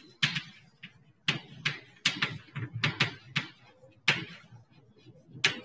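Chalk writing on a chalkboard: a dozen or so quick, irregular taps and short scraping strokes as a word is written.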